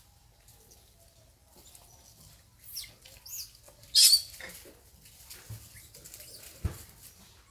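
Baby long-tailed macaques giving short, high squeaks that slide downward, a few around three seconds in and the loudest about four seconds in. A brief low thump near the end.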